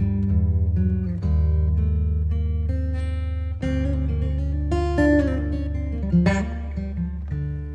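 Background music led by plucked guitar over a steady bass.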